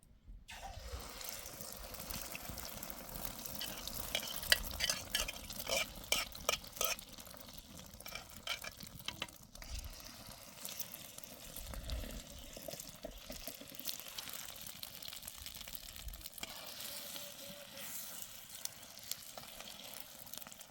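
Food frying in a hot pan with a steady sizzle, and the scraping clicks of stirring, busiest from about four to nine seconds in.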